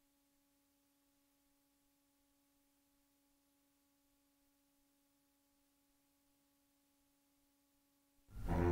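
Near silence with a faint steady hum, then a music soundtrack starts suddenly near the end with low sustained notes.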